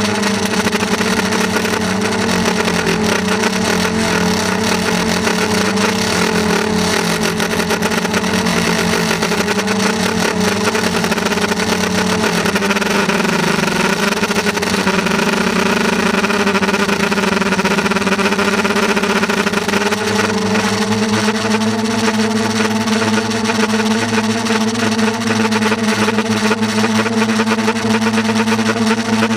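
A motor running steadily, its pitch dipping slightly midway and stepping up a little about twenty seconds in.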